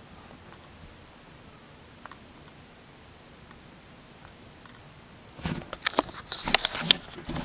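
Quiet room tone with a few faint ticks, then about five seconds in a loud stretch of rubbing, scraping and clicking as the camera is handled against the cardboard box.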